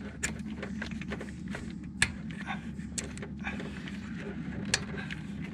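Scattered light clicks and knocks of plastic and metal parts being handled while a truck radiator's fan shroud and line clips are fitted, over a steady low hum.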